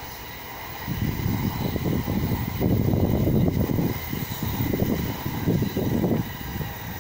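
Wind buffeting the microphone in irregular gusts, strongest about three seconds in, over the rush of a Taiwan High Speed Rail 700T trainset running past on an elevated viaduct.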